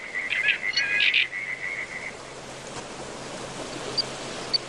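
Wetland ambience: a high, pulsing animal trill, loudest in its first second, stops about two seconds in, leaving a soft background hiss with a few faint, short high chirps.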